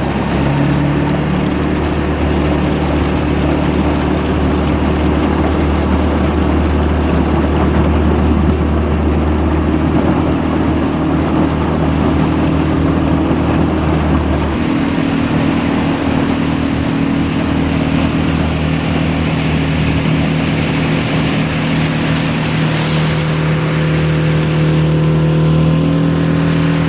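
A john boat's outboard motor running steadily under way. The sound changes about halfway through as a low rumble drops away, and the engine note steps up slightly near the end.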